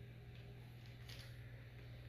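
Near silence: a steady low hum with a couple of faint soft rustles.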